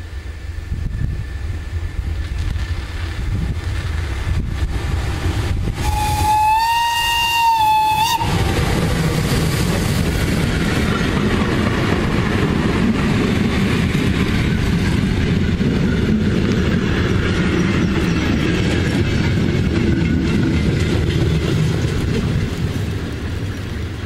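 German class E94 'Crocodile' electric locomotive approaching with a rumble, then sounding one steady horn blast of about two seconds some six seconds in. From about eight seconds the locomotive and its train of wagons and coaches pass close by, with a loud, continuous rumble and clatter of wheels on rails.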